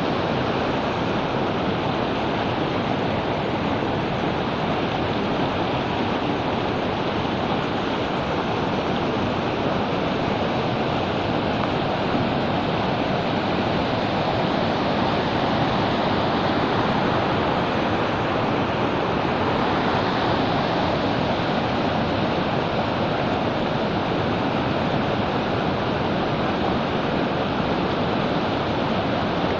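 Floodwater of a swollen river rushing and churning over a submerged causeway road: a loud, steady rush of water.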